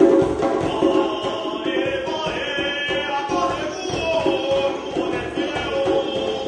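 Two djembe drums played by hand, beating a steady rhythm, while two men sing a supporters' song over them.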